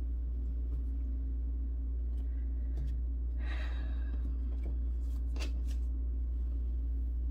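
Paper message cards being handled and flipped through by hand: a few soft card flicks and a brief rustle over a steady low hum.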